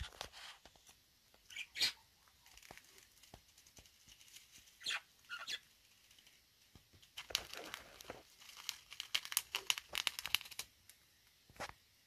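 Paper crinkling and rustling as a seed treat in a paper cupcake liner, nested in shredded crinkle paper, is set down on a wooden perch, then a budgerigar picking at the crinkle paper and seed cake with its beak: scattered crackles and ticks, busiest for a few seconds after the middle.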